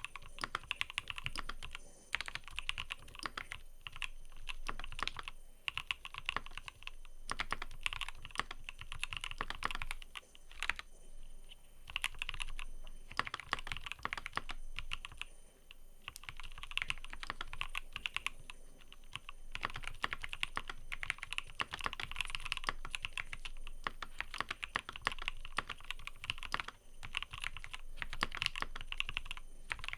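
Typing on a mechanical keyboard: fast, continuous key clicks in runs of a few seconds, broken by short pauses.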